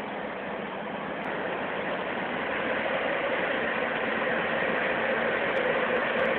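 Heavy diesel tractor trucks running steadily as they move past in a slow convoy, growing gradually louder as one passes close.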